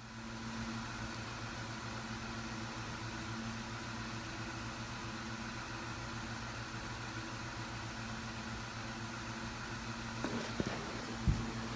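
Steady mechanical hum with a low tone and a few fixed higher tones over a hiss, with a couple of light knocks and clicks near the end.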